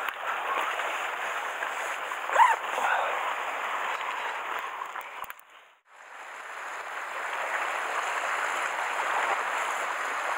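Sea washing and swirling against the rocks of a rocky shore, a steady hiss of surf. A brief high squeak rises and falls about two and a half seconds in, and the sound drops out for a moment just before six seconds.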